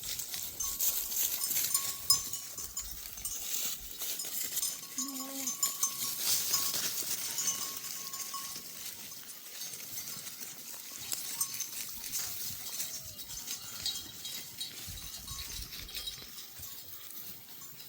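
A flock of sheep and goats with their bells jingling, several bells ringing on and off. One animal bleats briefly about five seconds in, and fainter bleats come later.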